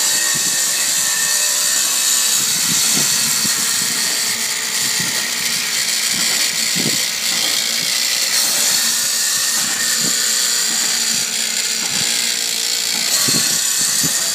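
Waveblade electric barnacle remover running steadily, its powered blade scraping hard, dried barnacles off a concrete surface, with faint irregular knocks as the shells break away.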